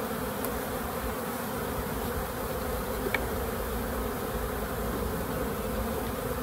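Many honeybees buzzing around an opened hive, a steady hum, with one faint tick about three seconds in.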